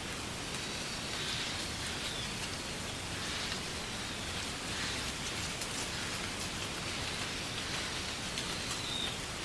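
Wind blowing through a stand of reeds: a steady, dry rustling hiss that swells and eases in slow gusts, with scattered faint ticks.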